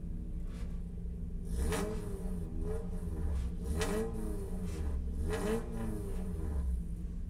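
Spec Miata race car's four-cylinder engine heard from inside the car under hard driving, its revs rising and falling several times, with short flares of noise about 2, 4 and 5.5 seconds in.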